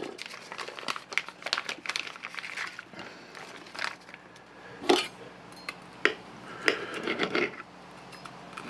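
Clear plastic fish packaging crinkling and rustling as the fillet is pulled out of the bag onto a plate, with a few sharper clicks and taps.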